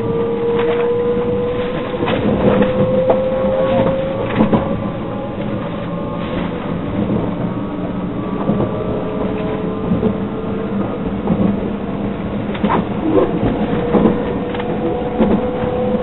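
Inside a JR 681/683-series electric limited express train as it picks up speed: the traction motors whine, rising slowly in pitch, over the rumble of the car with scattered wheel clicks on the rails.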